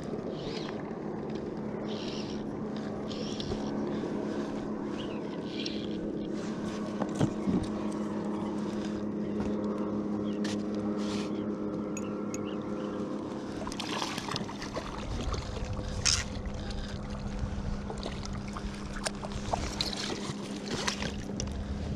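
Steady drone of a motorboat engine running across the lake, with water splashing from about two-thirds of the way in as a hooked trout thrashes at the surface and is scooped into a landing net.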